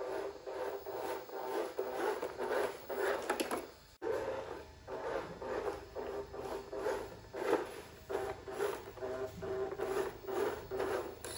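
Small RC scale car's electric motor and gears whirring in short, uneven throttle bursts, several a second, with the tyres scraping and crunching through loose sand. The sound breaks off abruptly about four seconds in and picks up again.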